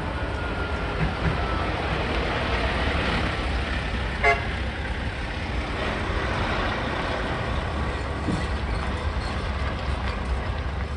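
Heavy truck's diesel engine running as it drives slowly past, with one short horn toot about four seconds in.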